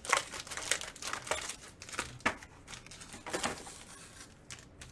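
Plastic wrapping crinkling and tearing in irregular crackles as a trading card box and its packs are opened by hand.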